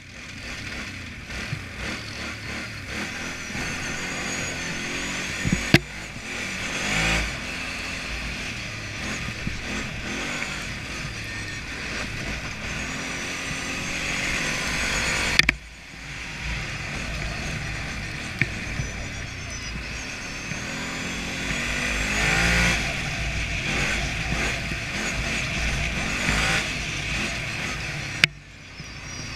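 ATV engine running as the quad rides over snow, its pitch rising and falling as the throttle is opened and eased off several times. A few sharp knocks are heard, and twice the sound breaks off abruptly for a moment.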